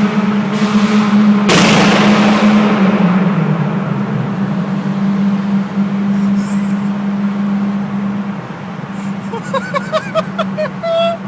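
Zastava Yugo 65's engine running steadily in a tunnel, with one loud backfire bang from the exhaust about one and a half seconds in, echoing briefly. The engine sound fades later on, and near the end a person's voice is heard.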